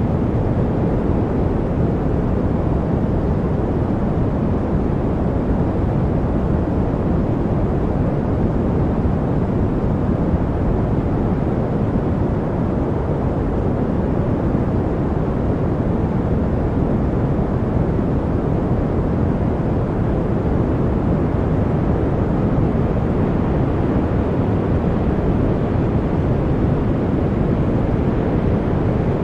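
Steady, unchanging white-noise track, its hiss weighted toward the low end so that it sounds like a deep, even rush.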